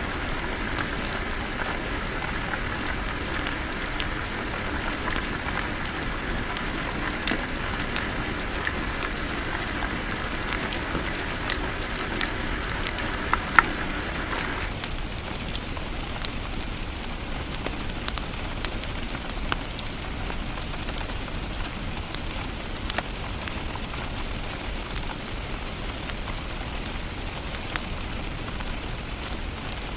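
Wood fire in a fireplace crackling, with irregular sharp pops over a steady hiss. A higher hissing layer cuts off suddenly about halfway through, leaving the crackle over a lower, even rush.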